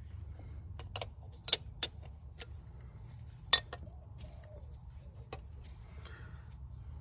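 Steel open-end spanner clinking and tapping against the injector line nuts on a diesel injection pump: several separate sharp metallic clicks, the loudest about halfway through, over a steady low hum.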